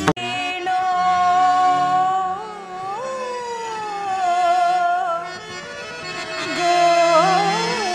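Carnatic-style stage music: a slow melody of long held notes with sliding ornaments over sustained low keyboard chords.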